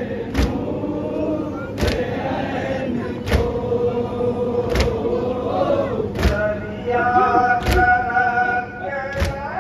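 A noha, the Shia lament for Karbala, sung by a man into a microphone with other voices joining, kept in time by sharp unison strokes of matam (chest-beating) about once every second and a half.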